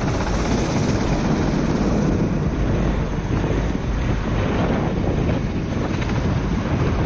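Wind rushing over the onboard camera's microphone on a four-stroke kart driving in the rain, with the kart's running heard as a steady low rumble underneath.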